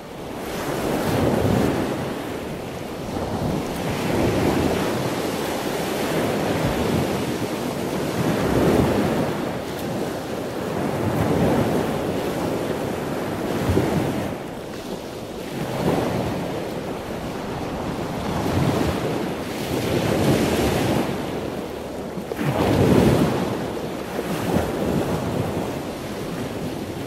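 Ocean surf breaking on a sandy beach, the wash swelling and ebbing every few seconds, with wind on the microphone.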